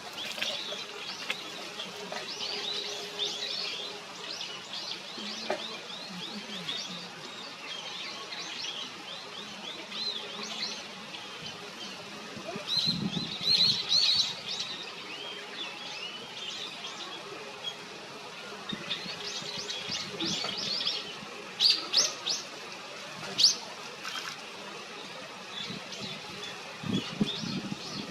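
Birds calling: a steady run of short, high chirps, with a few sharper, louder calls about halfway through and twice more near the end.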